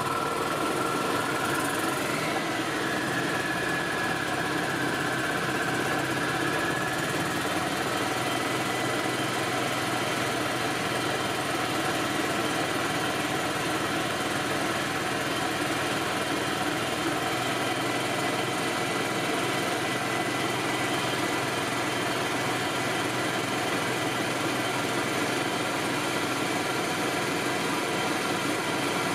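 1999 Yamaha G16 golf cart's gas engine running steadily just after starting, with a higher whine that lifts about two seconds in and then settles. It is running so that its charging system can be tested, which turns out to be charging on the high side but within range.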